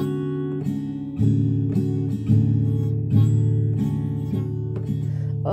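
Acoustic guitar strumming sustained chords, an instrumental gap between sung lines of a song.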